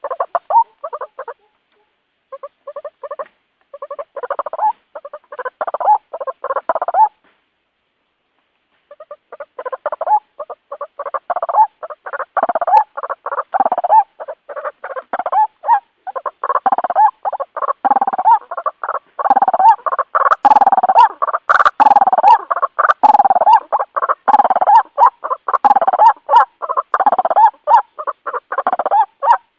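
White-breasted waterhen (ruak-ruak) calling in a rapid run of repeated notes. The calling stops twice briefly, once near the start and again about seven seconds in, then runs on steadily and loud.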